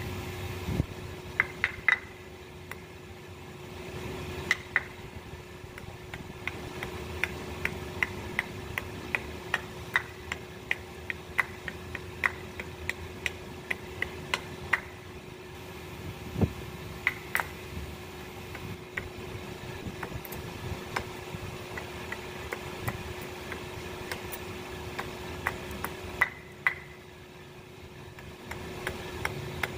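A series of light, sharp taps, about two a second through the middle stretch with a few louder ones before and after, over a steady low hum.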